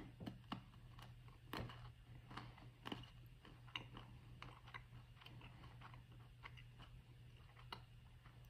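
Faint, irregular crunching of a person chewing an almond, with the crunches coming more often in the first few seconds.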